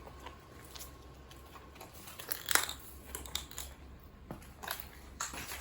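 Scattered small crunches and knocks, the sharpest about two and a half seconds in.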